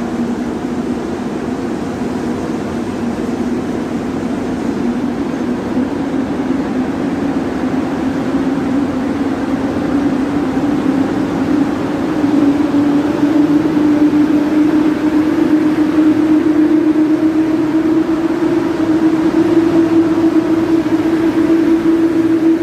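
Freight train rolling past: an electric locomotive followed by a long line of loaded hopper wagons. It makes a steady rumble with a tone that slowly rises in pitch and grows louder about halfway through, as the wagons go by.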